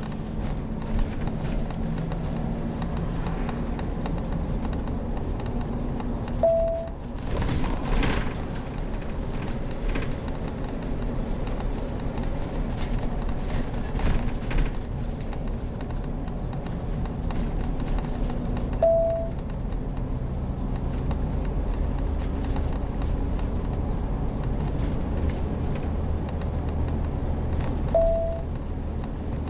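Heavy motorhome's engine running as it drives, a steady hum with road noise and a few knocks, with three short single-pitch beeps spaced several seconds apart.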